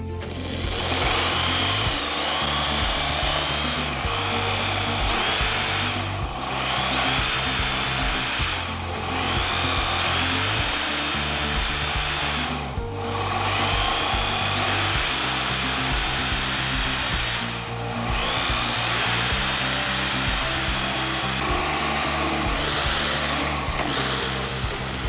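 Bosch GSB 16 RE corded drill boring a 25 mm wood bit into a thick hardwood post, its motor whining under load and shifting in pitch as the bit bites. The drill eases off briefly four or five times, a few seconds apart, then bores on. Background music plays underneath.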